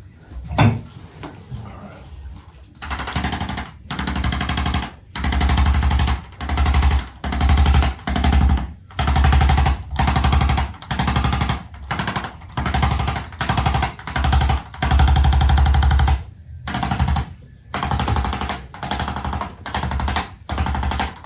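A handheld electric percussion tool, such as a chiropractic adjusting instrument or massage gun, rattling in rapid hammering bursts of about half a second to a second each, fired roughly once a second with short gaps between.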